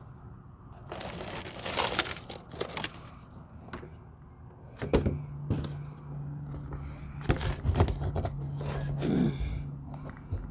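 Rustling, crackling and knocking of a camera being handled and set down against fabric, in irregular bursts with a few sharp knocks. A low steady hum comes in about halfway.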